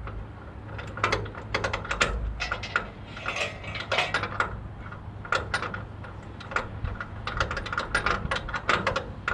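Bursts of rapid light clicking, several clicks a second, over a low steady hum.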